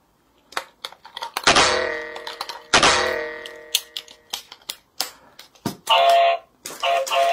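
Plastic clicks and knocks from handling a toy train and fitting batteries into its battery compartment. Two sharp strikes about a second apart each ring on with a fading tone, and short bursts of tones come near the end.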